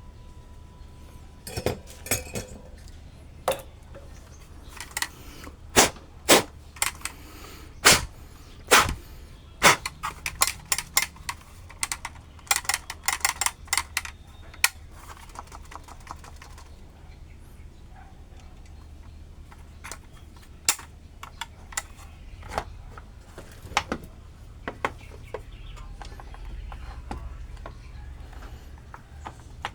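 Sharp clicks and knocks of hard objects being handled, coming thick and fast for the first fifteen seconds or so and then sparser, over a low steady hum.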